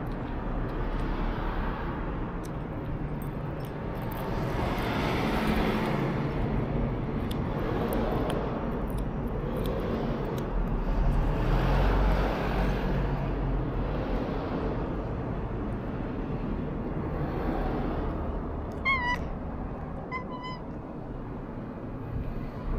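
Young colorpoint cat meowing twice, in short, high, wavering calls near the end, over a steady rumble of passing traffic that swells and fades.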